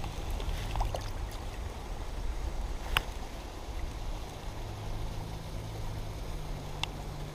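Shallow creek water flowing around wading boots and a fish held in the current, heard as a steady low rumble, with a sharp click about three seconds in and another near the end.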